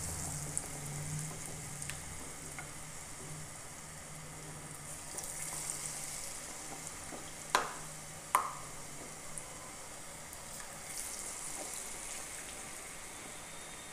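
Batter-coated potato slices deep-frying in hot oil in a small saucepan, a steady sizzling hiss. Two sharp clicks come a little over halfway through.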